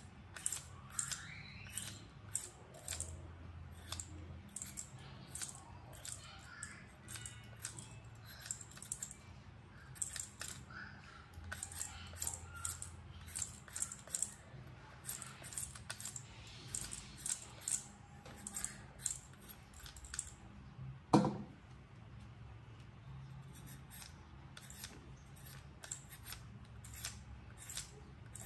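Hand-held vegetable peeler scraping the skin off a raw potato in short, quick strokes, about two a second. There is a single louder knock about three quarters of the way through.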